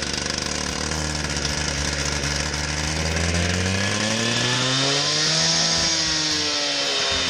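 Two-stroke gas cut-off saw revving up over the first few seconds to full speed and running hard, a rising hiss coming in as the blade cuts into the concrete sidewalk slab.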